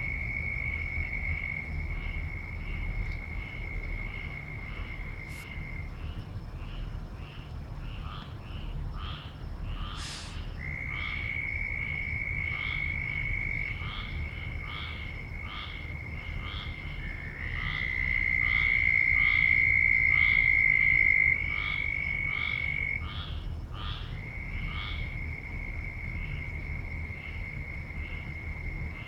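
A loud frog chorus. One long, steady, high trill stops and restarts several times and swells louder in the middle stretch. Over it, short repeated calls come about twice a second.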